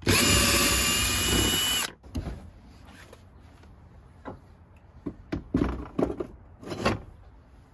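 Ryobi cordless drill spinning a 10 mm socket to back a bolt out of the rear storage tub: a steady whine for about two seconds that stops abruptly. Then a few light clunks as a metal bracket is set down into the plastic tub.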